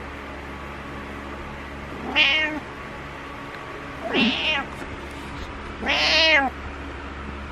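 Domestic cat meowing three times, about two seconds apart, each meow short, over a steady background hum.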